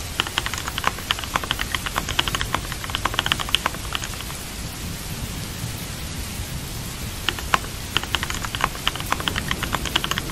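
Steady rain with bursts of computer-keyboard typing: quick runs of key clicks for the first few seconds, a pause with only rain, then typing again from about seven seconds in.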